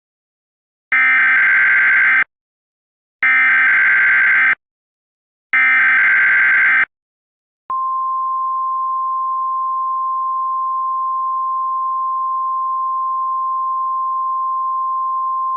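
Three bursts of SAME data-header tones, each about a second long and evenly spaced, then a steady single-pitch NOAA Weather Radio alert tone that starts about 7.7 seconds in and holds. Together they mark the start of a new emergency alert broadcast.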